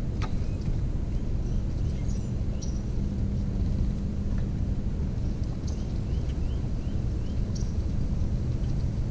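Steady low outdoor rumble with a faint constant hum under it, and small birds chirping faintly now and then, a short run of quick notes a couple of times.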